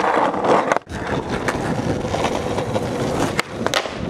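Skateboard wheels rolling over an asphalt street, a steady coarse rumble, with a few sharp clacks of the board against the ground.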